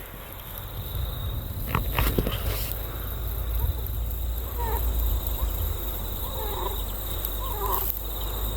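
Brown teal (pāteke) giving a series of short, soft calls, each a quick note that rises and falls, starting about halfway through and repeating every half second to a second, over a steady low rumble.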